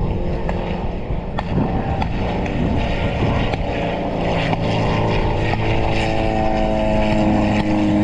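Engine of a replica Nieuport fighter plane droning as it flies past, growing louder and clearer over the last few seconds as it comes nearer. Wind rumbles on the microphone.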